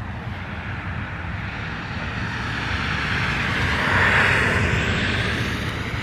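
Federal Signal 2001-SRNB rotating outdoor warning siren sounding its full-alert tone. The tone swells and fades as the rotating horn sweeps toward the microphone, loudest about four seconds in, over a steady low rumble.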